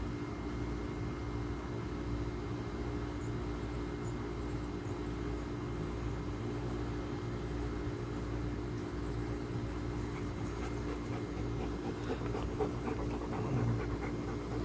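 A steady, low machine-like hum with a low rumble underneath. In the last few seconds, small scuffing and snuffling sounds come from a dog up close, nosing at a ball.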